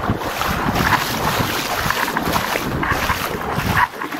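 Water splashing and sloshing as someone wades through ankle-deep water, pulling a small plywood dory by hand, with wind buffeting the microphone.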